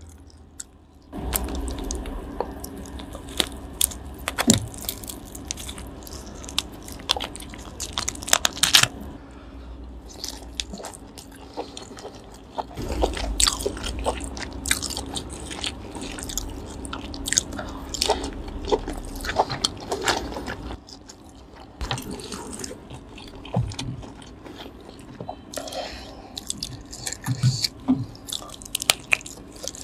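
Close-miked eating sounds of grilled lobster: many quick clicks and crackles as meat is pulled from the shell and dipped in sauce, along with chewing.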